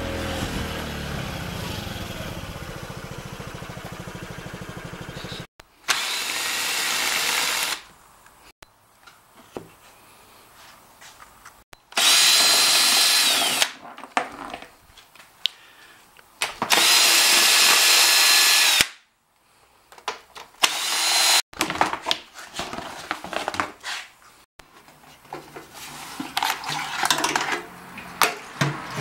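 The 50cc Honda Ruckus scooter's single-cylinder engine running steadily for about five seconds and then stopping. After that, a cordless impact driver runs in three bursts of about two seconds each, backing out floorboard screws. Between and after the bursts there are scattered knocks and rattles from parts being handled.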